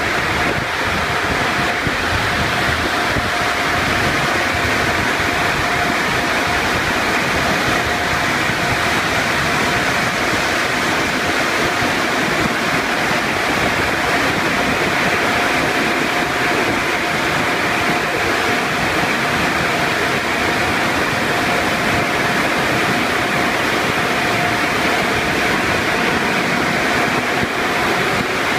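Conveyor car wash tunnel running: water spraying and cloth brushes spinning against a pickup make a loud, steady rush, with a thin steady whine from the equipment running through it.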